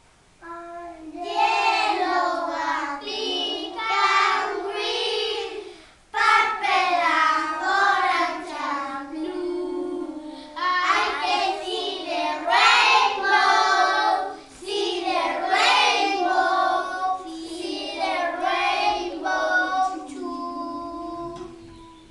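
A group of preschool children singing a song together, in several phrases with short breaks between them, fading out near the end.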